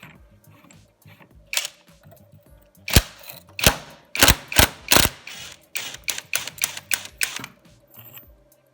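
A run of sharp metallic knocks and clicks from hand tools and engine parts being handled, with five heavy knocks a little over half a second apart, then quicker, lighter clicks, over faint background music.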